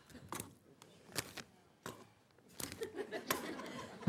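Metal kitchen tongs clicking and a plastic zip bag rustling as raw chicken thighs are dropped into it: a few short, sharp clicks early, then a softer, longer rustle in the second half.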